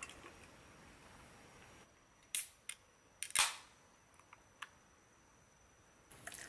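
Aluminium beer can being opened: a few small clicks of the pull-tab, then a sharp crack with a brief hiss about three and a half seconds in.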